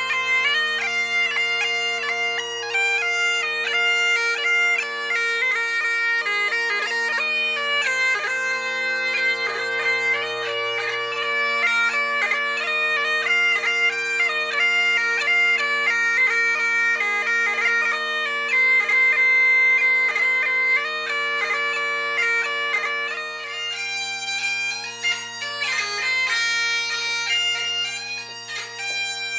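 Bagpipes playing a tune: a quick-moving chanter melody over steady, unbroken drones.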